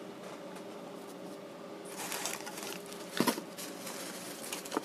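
Plastic parts bag and tissue paper rustling as they are handled, starting about two seconds in, with a single knock a little after three seconds.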